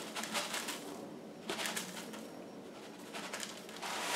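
Dry rolled oats pouring from a cardboard box into a plastic bowl, a light rattling patter that thins out about a second in. Near the end the cardboard box rustles as it is handled.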